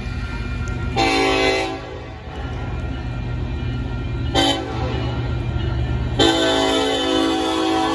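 Union Pacific diesel locomotive horn sounding three blasts as the train approaches a grade crossing: a short blast about a second in, a briefer one just past halfway, and a longer one near the end. Under the blasts runs the steady low rumble of the oncoming train.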